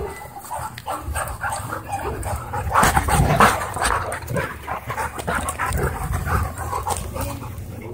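Dogs play-fighting, growling and barking, loudest about three seconds in.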